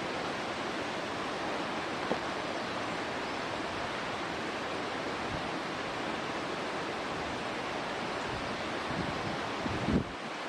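Steady, even rushing noise of outdoor ambience, with a few low thumps of wind on the microphone about nine to ten seconds in.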